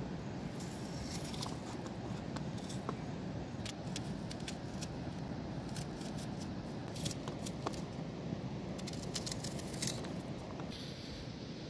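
Kitchen knife cutting small red onions held in the hand: a scattered run of crisp clicks and snips as the blade goes through the onion. A steady background hiss runs underneath, and the cutting stops near the end.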